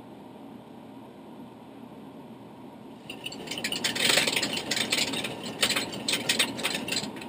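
A mechanical ratcheting clatter from a control mechanism in a Boeing 737-800 simulator cockpit: a loud, uneven run of clicks that starts about three seconds in and stops abruptly, over the steady hum of the cockpit.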